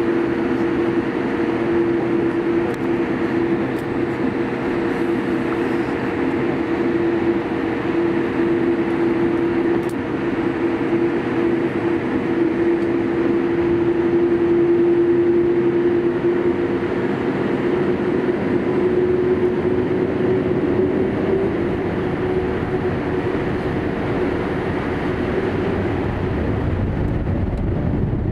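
Twin GEnx-1B engines of a Boeing 787-8 running at low power, heard inside the passenger cabin as a steady rumble with a steady whine, while the aircraft moves on the ground before the takeoff roll.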